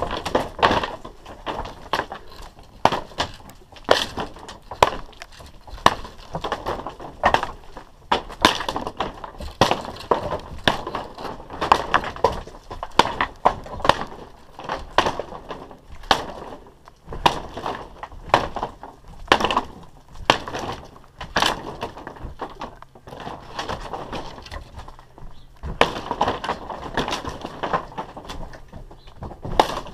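Old wooden roof timbers cracking, splintering and knocking as a long rafter is pushed and levered loose by hand, a dense, irregular run of sharp cracks and clatters.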